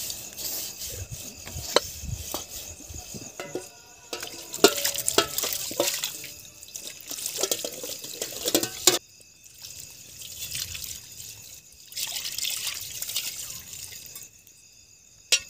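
Water poured from a plastic jerrycan splashing over steel dishes being scrubbed by hand, in stretches with a pause of a few seconds midway. A sharp clink of steel dishes near the end.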